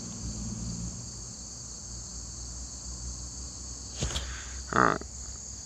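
Steady, high-pitched chorus of insects buzzing. About four seconds in there is a faint click, followed near the end by a short, louder vocal sound.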